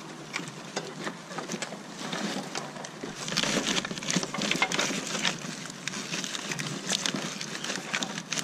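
Dense, irregular rustling and small plastic clicks of a car's wiring loom being handled and worked behind the engine against the firewall, getting busier about three seconds in.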